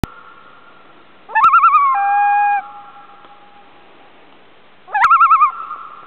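Common loon calling twice, each a rising note that breaks into its fast, wavering tremolo. The first call ends in a held steady note that trails off slowly. The second call, a few seconds later, is tremolo only.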